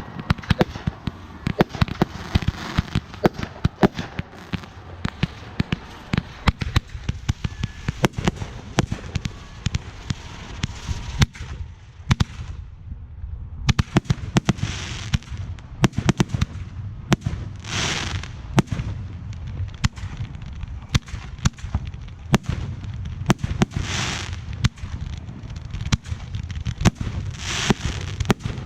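Consumer fireworks going off: a dense, irregular run of sharp pops and bangs, with a hiss of about a second swelling and dying four times in the second half.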